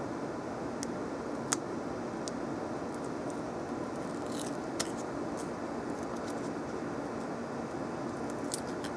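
Small clicks and faint scratching from fingers picking at and peeling the paper backing off a stick-on pouch's 3M adhesive strip, over a steady background hum; the sharpest click comes about one and a half seconds in.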